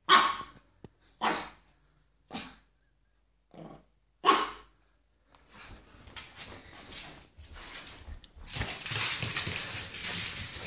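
A 9-week-old pug puppy barks five short times in the first four and a half seconds, startled by something new it is afraid of. After that comes a scuffing, rustling noise that gets louder near the end.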